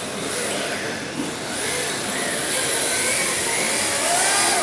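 Electric 1/10-scale RC drift cars running in tandem, their motors whining up and down in pitch over a steady hiss, a little louder in the second half.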